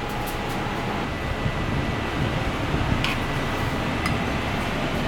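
Steady rushing noise of a commercial kitchen's gas burners and ventilation fan, with two light clinks about three and four seconds in.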